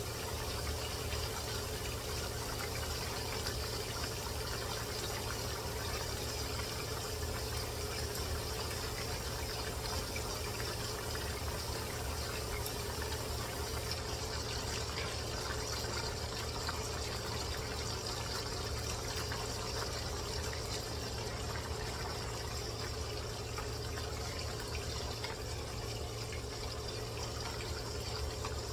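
Chicken cooking in fat in a pan on the stove: a steady sizzle with a low hum underneath.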